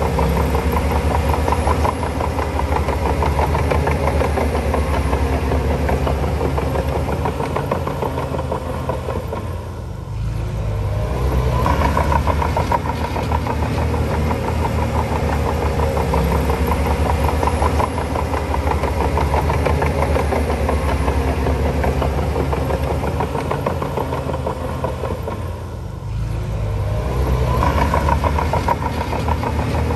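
Shantui DH7C2 bulldozer's diesel engine working steadily, easing off twice, a third of the way in and again near the end, then building back up.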